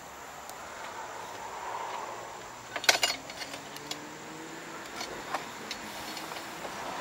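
Sharp metallic clicks and clatter of mower wheel and hub parts being handled and fitted back on, with the loudest cluster about three seconds in and a few lighter clicks later, over a steady background hum.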